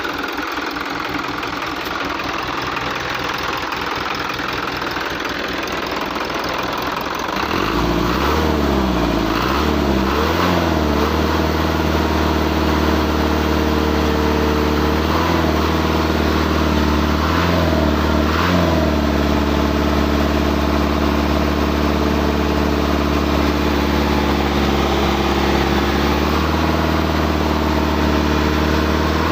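Hino truck diesel engine running, being checked for an abnormal engine noise. At first it idles with a rough, rapid rattle. About seven seconds in it runs up to a higher speed, dips and rises in speed a few times, then holds steady. The speed drops near the end.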